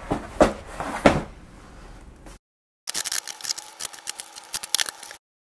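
Cardboard shipping box handled with a few knocks, then scissors slitting the packing tape along its top: a run of quick crackles and clicks. The sound drops to dead silence twice, at cuts in the footage.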